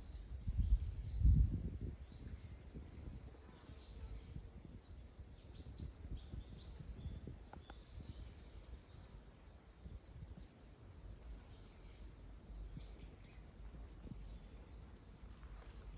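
Faint outdoor ambience with a few soft bird chirps. Low rumbles from air or handling on the microphone are strongest in the first two seconds.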